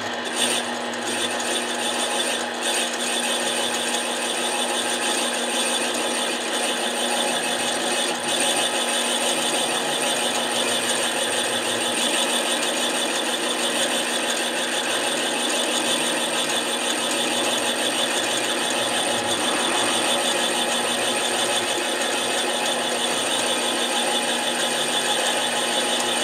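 Harbor Freight mini lathe running steadily under power, its motor and drive giving a constant whine with several fixed tones while a cut is fed by hand.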